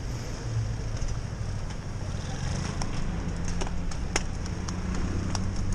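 Steady low rumble of city traffic and riding noise on a cyclist's camera, with an engine-like hum underneath. Scattered sharp clicks and ticks run through it, the loudest about four seconds in.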